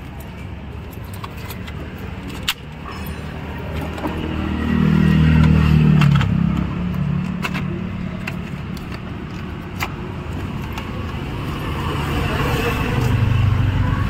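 Low motor-vehicle engine rumble that swells about five seconds in and again near the end, with scattered sharp plastic clicks as a car's power window switch panel is handled and pressed into the door trim.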